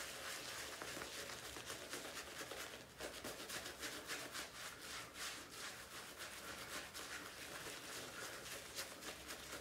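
Shaving brush being worked over a lathered face: a faint, continuous brushy scratching made of many quick strokes of bristles through the lather and over stubble.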